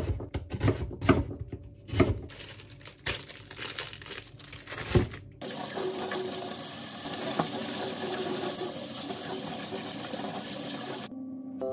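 A kitchen knife chopping an onion on a wooden cutting board, a series of sharp chops. About five seconds in it cuts to tap water running steadily into a stainless-steel sink while a burdock root is scrubbed under it with crumpled aluminium foil.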